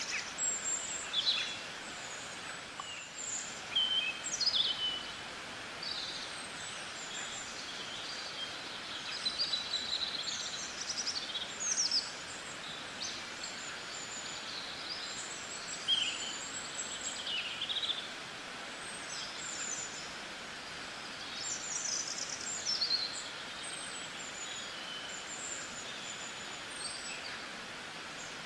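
Birdsong: many short chirps and whistles over a steady hiss of background noise.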